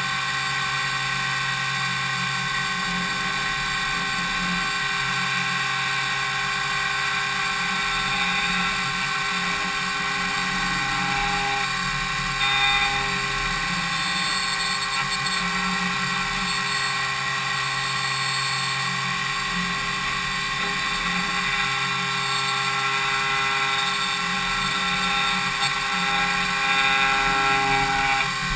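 DMU 70V five-axis CNC milling machine cutting impeller blades: a steady high-pitched whine of the spindle and cutter, made of many steady tones, with a short louder burst about twelve seconds in.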